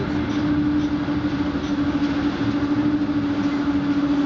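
Running noise heard inside a moving electric passenger train: a steady rumble of wheels on the track with one constant hum over it.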